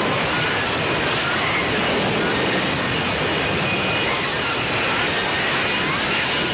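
Steady jet engine roar from an F-35B, with a faint wavering whine above it.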